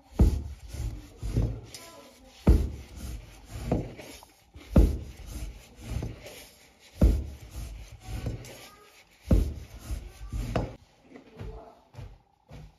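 Cleaver chopping through a folded sheet of hand-rolled noodle dough onto a wooden board, about one cut a second, each a thud on the wood. Near the end the chopping stops and only softer handling sounds remain.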